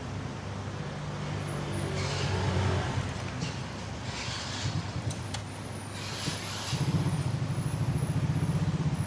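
A motor vehicle engine running: a low steady hum that turns into a fast, regular putter about two-thirds of the way through, with a few short hisses.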